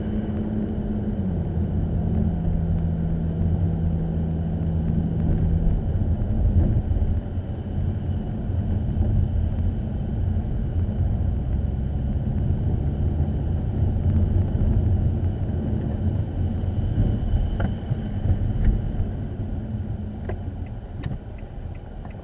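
Motor vehicle on the move: a steady low rumble of road and engine noise, with the engine note stepping down in pitch about a second in. A few light clicks come near the end.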